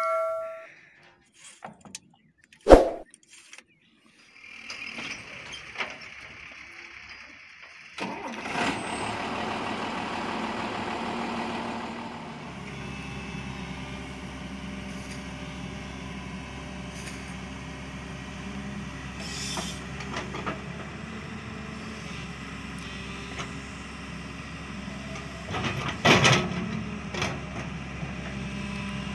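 A single sharp click, then from about eight seconds in a Hyundai 210 crawler excavator's diesel engine running steadily, with a brief louder burst near the end.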